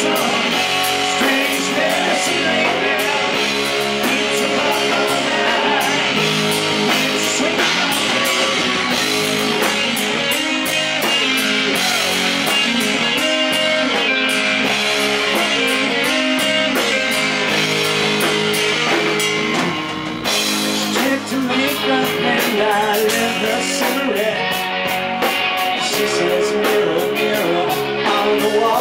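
Live rock band playing electric guitars and a drum kit, heard straight from the stage amps and monitors rather than a mixed PA. The band drops back briefly about twenty seconds in, then builds again.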